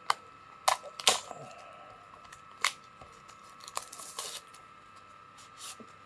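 Sharp, separate clicks and knocks, about seven in all and loudest in the first second or so, from handling a clip-on wireless microphone set as it is checked, over a faint steady tone.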